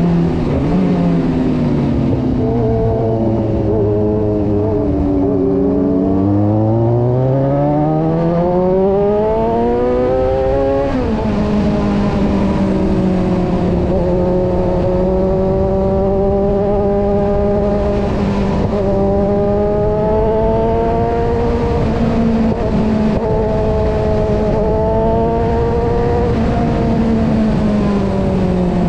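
Kawasaki Versys 1000's inline-four engine heard from a camera mounted on the bike, over steady wind rush. The revs fall for a few seconds, climb steadily, drop sharply at a gear change about eleven seconds in, then hold fairly steady at cruising speed.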